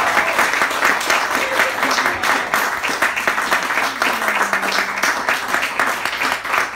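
Small audience applauding steadily, dense overlapping handclaps.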